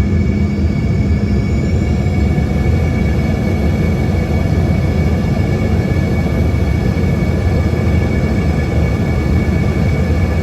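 Cabin noise of an Embraer ERJ-145: a steady roar from its rear-mounted Rolls-Royce AE 3007 turbofans, with a low rumble and steady whining engine tones. A few high tones slide down in pitch in the first two seconds.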